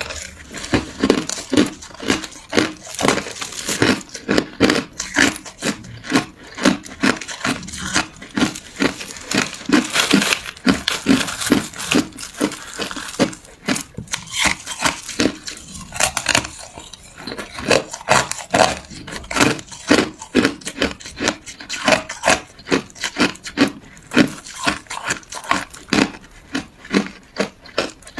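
Ice being chewed and crunched between the teeth, a steady run of sharp crunches at about two a second.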